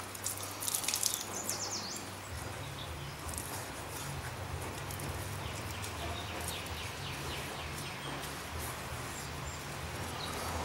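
Faint, scattered chirps of small birds over a low steady hum.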